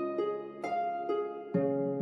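Background music: a gentle melody of plucked notes, a new note about every half second, each ringing on and fading.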